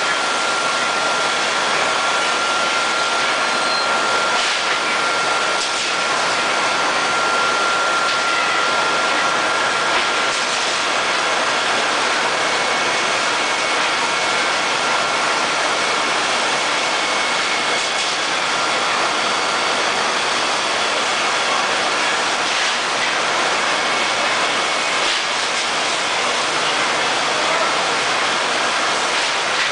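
Industrial cage-washing machine running: a steady, even hiss of machinery with a thin whine, which gives way to a fainter, higher whine about halfway through.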